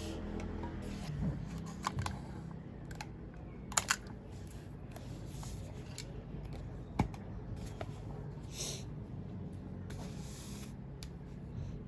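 Sparse desk handling sounds: a few isolated clicks, a quick double click about four seconds in and a sharper one at seven, and a couple of short soft rustles, over a low steady hum.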